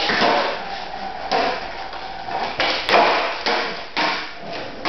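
Skateboard on a concrete floor: wheels rolling with a steady hiss, broken by several clacks and knocks of the board, the loudest and sharpest about three seconds in.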